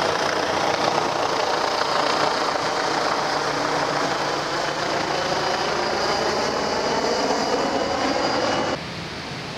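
Helicopter flying low overhead: steady rotor and engine noise with a faint high whine. It drops away suddenly near the end.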